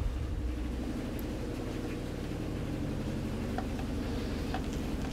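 A steady low hum, with a few faint, short clicks as a screw is turned by hand to fasten a small circuit board onto its mounting standoffs.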